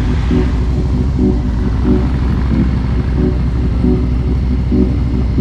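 Harley-Davidson touring motorcycle's V-twin engine running steadily at low speed, a deep continuous rumble as the bike rolls slowly.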